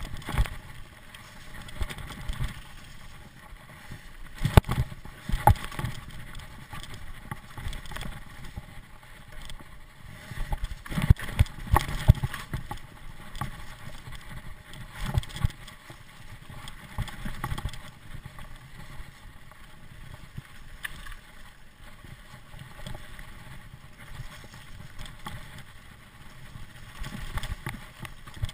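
Mountain bike descending a rough forest trail, heard from a camera mounted on the bike: wind on the microphone and tyre noise, broken by frequent clattering knocks as the bike rattles over roots, rocks and wooden planks.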